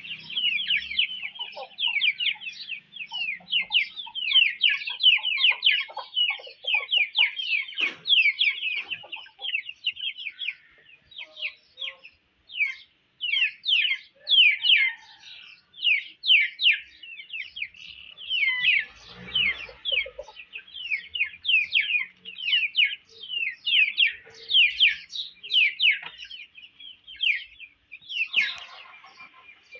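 High-pitched bird chirping: short downward-sliding chirps, several a second, thinning briefly partway through.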